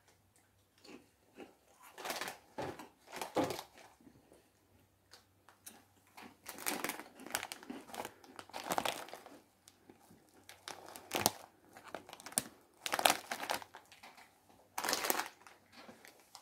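Foil-lined snack bag crinkling in short, irregular bursts as it is handled, with a small wrapper rustled near the end.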